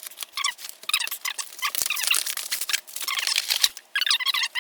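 Shipping packaging being opened by hand: quick crinkling, rustling and scraping in uneven spurts, with short pauses between them.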